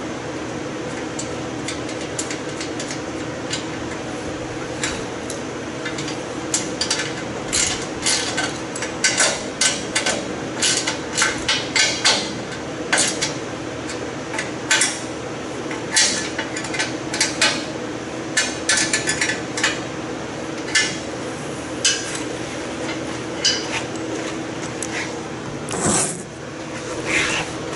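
Irregular metal clinks and taps of a wrench, bolts and steel parts as a heavy steel front bumper is bolted back onto a street stock race car's frame, with a louder knock near the end. A steady hum runs underneath.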